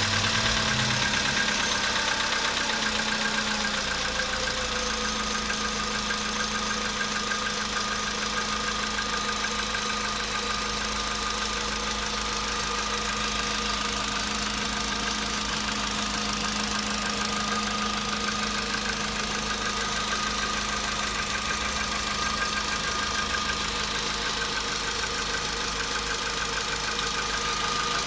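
Volkswagen Polo Sedan's 1.6-litre CFNA four-cylinder petrol engine idling cold, with the knock it makes when cold. The idle speed settles a little lower in the first few seconds and then runs steadily.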